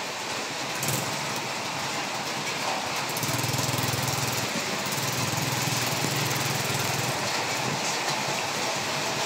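Heavy rain falling steadily, with a small motorcycle engine running at low revs. The engine is loudest from about three seconds in until about seven seconds, with a short dip in between.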